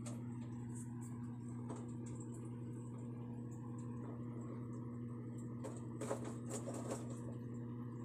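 A steady low electrical hum runs throughout, with light rustling and a few soft knocks from the hanging cloth being handled, clustered about six to seven seconds in.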